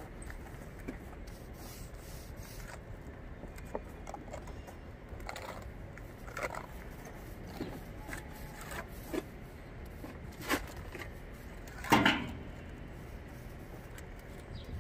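A hand trowel working paste over a concrete slab: occasional short scrapes and taps, with a brief clatter near the end, over a steady background hiss.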